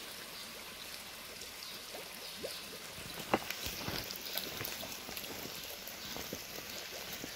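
Faint trickling water in an outdoor fish pond: a steady soft hiss with scattered light clicks and a couple of small knocks about three and a half and four seconds in.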